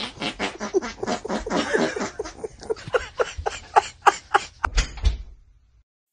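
A cat letting out a rapid string of short, squeaky meows as a hand pats and presses on its back, one little cry squeezed out with each press. The cries stop about five seconds in.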